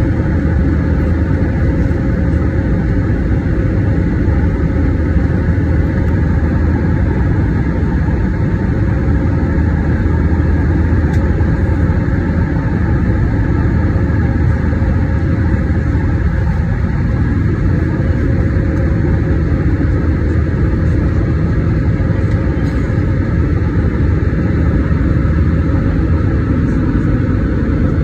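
Airbus A320's IAE V2527-A5 turbofan engines at climb power, heard inside the cabin over the wing: a steady low rumble with a steady hum above it, unchanging throughout.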